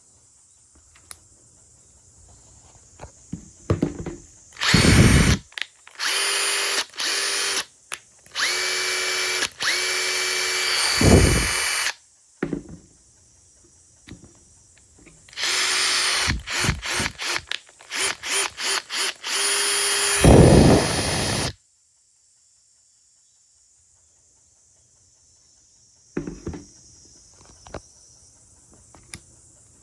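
Makita TP141D cordless 4-mode impact driver run in repeated trigger pulls: the motor whines up in short bursts and longer runs, with a quick series of brief blips about 16 to 19 seconds in. Three louder stretches, each about a second long, carry heavier hammering. The tool stops about two-thirds of the way through, and a few faint handling knocks follow.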